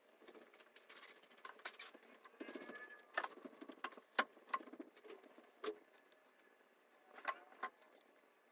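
Irregular light clicks and taps, with a short scratchy rustle about two and a half seconds in: small handling noises.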